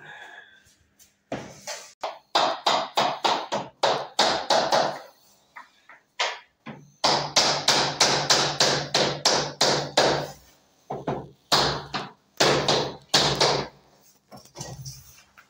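Hammer tapping floating laminate flooring planks into place, in quick runs of strikes about four or five a second, broken by short pauses.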